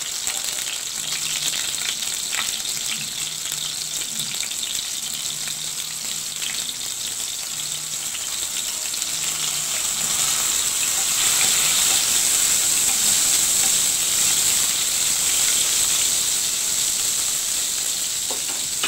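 Pieces of pointed gourd (potol) coated in salt and turmeric sizzling and crackling in hot oil in a wok, the sizzle getting louder about halfway through.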